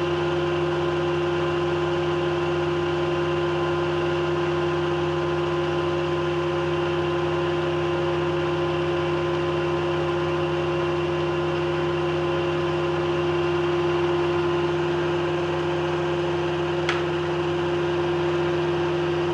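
Blanchard No. 11 rotary surface grinder running idle with its grinding spindle and chuck turning, not yet cutting: a steady machine hum with a strong steady tone. A single brief tick near the end.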